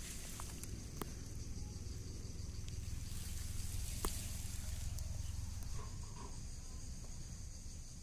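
Outdoor ambience by a pond: a steady low rumble of wind on the microphone under faint, continuous high-pitched insect chirring, with a couple of light clicks about one and four seconds in.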